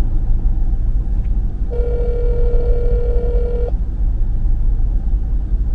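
A telephone ringback tone through a phone's speaker: one steady ring of about two seconds, starting about two seconds in, as a call rings out unanswered. Under it, a steady low rumble of a vehicle.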